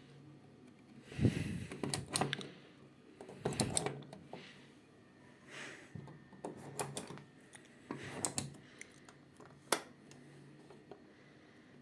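Ariston washing machine running a wash: irregular clicks and short knocks at uneven intervals over a faint low hum.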